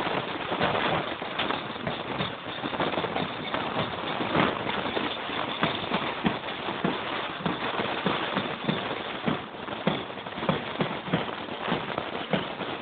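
Footsteps of a group walking on a dirt path: an irregular patter of steps over a steady rustling noise.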